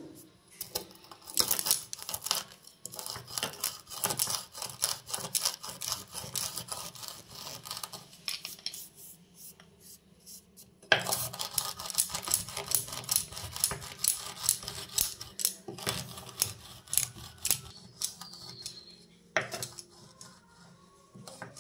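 Wooden rolling pin crushing and grinding dry-roasted black peppercorns and cloves on a rolling board into powder: rapid, irregular crunching and rubbing. It pauses briefly about halfway through, then starts again sharply.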